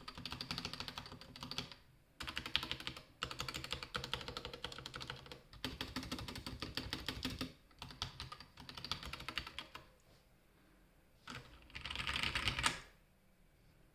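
Fast typing on a Red Square Keyrox TKL tenkeyless mechanical keyboard with stock Gateron Yellow linear switches: dense runs of keystrokes broken by brief pauses. The typing stops about ten seconds in, then one last quick flurry comes at about twelve seconds.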